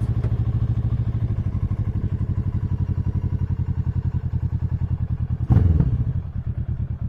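Kawasaki ER-6n 650cc parallel-twin engine idling through a Leo Vince full exhaust with the baffle removed, a steady pulsing beat. About five and a half seconds in, one quick throttle blip rises and drops back to idle.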